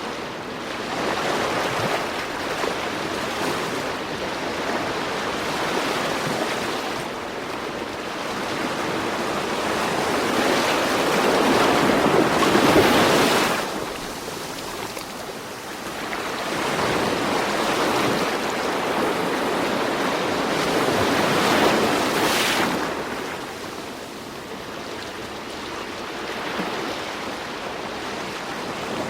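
Ocean waves surging and washing back, a steady rushing that swells and falls away every several seconds, loudest about halfway through.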